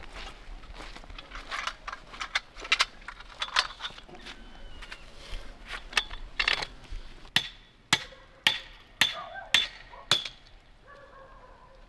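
A series of sharp clinking knocks: irregular handling noises at first, then six even strikes about two a second in the second half, each with a slight metallic ring.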